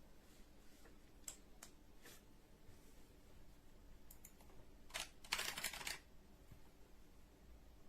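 Faint scattered clicks, then a short, dense clatter of clicks about five seconds in: computer keyboard keys and buttons being pressed at a desk.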